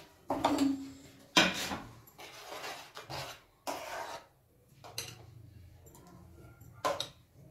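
A metal spoon scraping and knocking against a metal pan and a plate in a run of separate strokes, as cooked milk vermicelli is spooned out of the pan.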